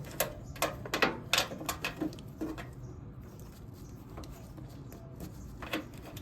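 Small sharp clicks and rattles of wire connectors being handled and pushed together while wiring a pellet grill's control panel. There is a quick cluster of clicks in the first couple of seconds, a quieter stretch, then a few more clicks near the end.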